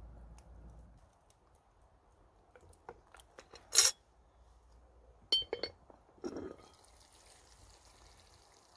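Camp cooking gear being handled: a few light knocks, a sharp clink just under four seconds in, a ringing metallic or glassy clink about a second later, then a soft steady hiss.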